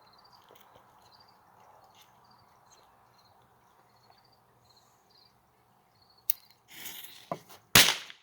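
Homemade mini firecracker going off: a brief hiss with a couple of clicks, then one loud, sharp bang near the end. Before it, faint high chirps repeat steadily.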